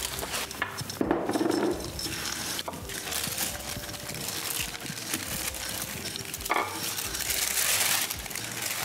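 Silicone spatula stirring and scraping peanuts in a saucepan of caramelizing sugar, with light sizzling and the clink of utensils and pans.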